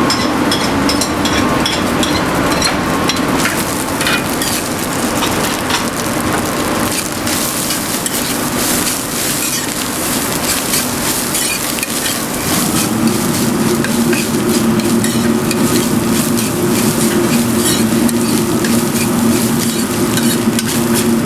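Rice stir-frying in a hot wok: steady sizzling with frequent clicks and scrapes of a metal utensil against the wok. A steady low hum joins about halfway through.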